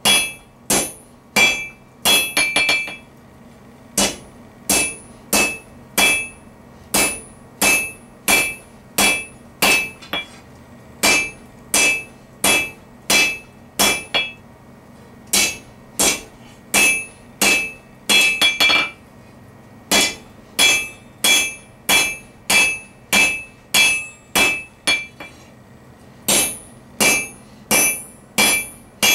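Hand hammer forging hot round steel bar on an anvil, drawing out a taper: steady blows about two a second, each with a bright metallic ring, in runs broken by short pauses.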